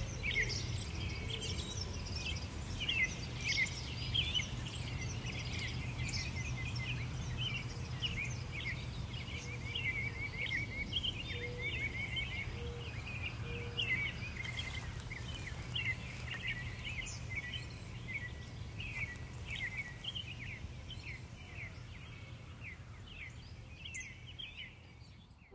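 Many small birds chirping and singing in quick, overlapping calls over a steady low background rumble of open-field ambience, the whole fading out near the end.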